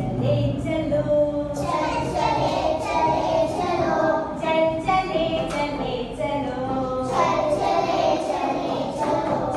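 Group of young children singing a song together in unison, accompanied by a harmonium played along with them, with a woman's voice leading.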